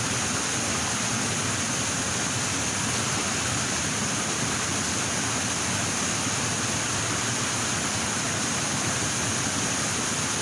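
Steady rushing water, an unbroken hiss with no pauses or single events.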